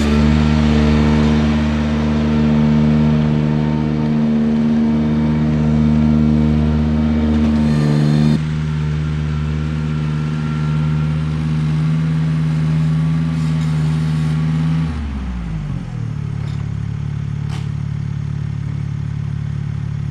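Ventrac compact tractor engine running at high throttle. The sound drops a step about eight seconds in, then the engine winds down about fifteen seconds in and settles to a lower, steady run.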